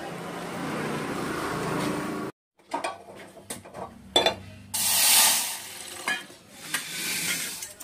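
Steady street-stall background din, then after a short break, a stainless steel plate knocking and clinking on a granite countertop in several separate strikes. A brief loud hiss comes about five seconds in.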